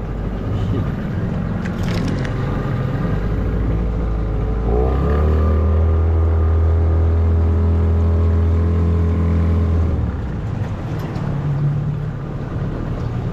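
Outboard motor of a small aluminium boat running under way. About five seconds in the engine speeds up to a higher, steady note, holds it for about five seconds, then drops back near the end.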